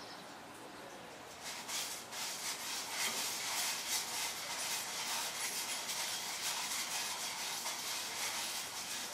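Scratchy rubbing and hissing as leftover varnish is cleaned out of a Kawasaki Brute Force 650 carburetor part. It picks up about a second and a half in and is strongest around the middle.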